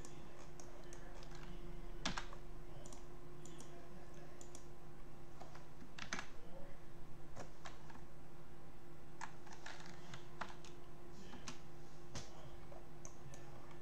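Computer keyboard keys and mouse clicks, tapped at irregular intervals with gaps of a second or more, over a steady low electrical hum.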